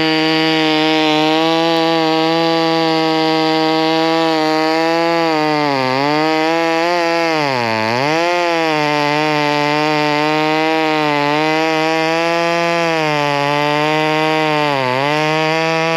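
VEVOR 58cc two-stroke chainsaw running at high revs, its pitch dropping briefly about six seconds in, deeply near eight seconds, and again near the end as the engine is pulled down under cutting load.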